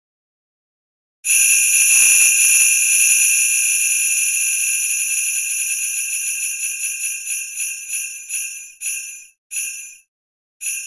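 A wheel-spinner app's spin sound effect: a jingling run of rapid ticks that starts suddenly about a second in, then slows and spreads out as the wheel coasts to a stop, with the last few ticks about a second apart.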